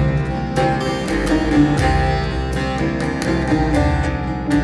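Instrumental passage of a Turkish folk song (türkü): a bağlama, the long-necked Turkish saz, picked in quick runs of notes over a keyboard accompaniment holding low notes.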